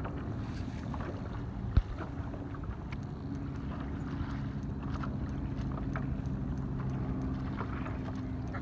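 Low-pitched horns sounding in long held blasts, two or three tones overlapping and starting and stopping at different times, over wind and water noise. A single sharp knock about two seconds in is the loudest sound.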